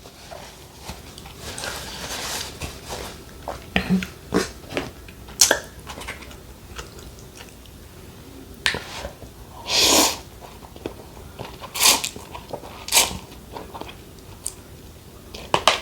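A person eating mussels and ramen noodles close to the microphone: chewing and mouth smacks with scattered sharp clicks, and a louder, longer noisy sound about ten seconds in.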